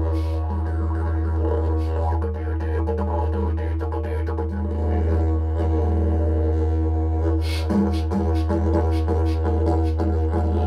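Bamboo didgeridoo droning steadily on one low note, its overtones shifting and changing colour above the drone. A few sharp clicks come about seven and a half seconds in.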